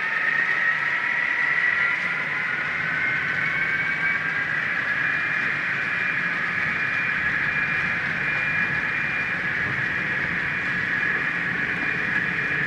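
Model train running, its locomotive motors giving a steady high whine of several tones that slowly rise in pitch over the first few seconds.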